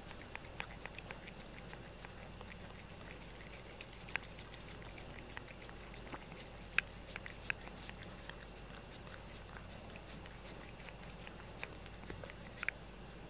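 A cat licking the last bits of food off a plastic spoon: quick, faint wet clicks of the tongue, several a second, with a few louder clicks along the way.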